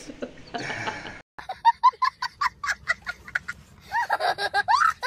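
A young child's high-pitched laughter: a quick string of short giggles, then longer squealing laughs near the end, after a short break in the sound about a second in.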